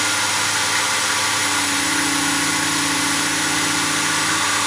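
Wood lathe motor running steadily at about 1500 RPM, a constant hum and whine from the motor and spinning workpiece, with no tool cutting yet.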